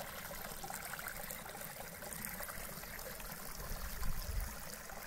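Water running from a carved stone channel of an Inca fountain, a steady trickling splash. A brief low rumble about four seconds in.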